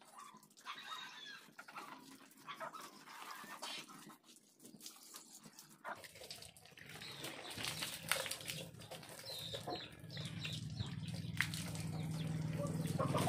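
Hand scrubbing and sloshing of soapy water on a motorcycle, with farm animals calling. A low steady hum comes in about halfway and grows louder.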